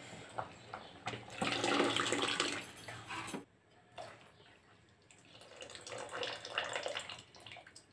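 Thin liquid, dal cooking water and tamarind extract, poured from a steel vessel into a pot of simmering sambar, splashing in two spells. The first cuts off suddenly about three and a half seconds in; the second starts about a second and a half later.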